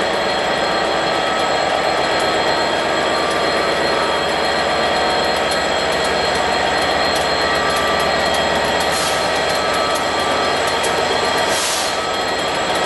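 Locomotive running as it moves slowly past along the platform: a loud, steady mechanical sound with several high, steady whining tones over it.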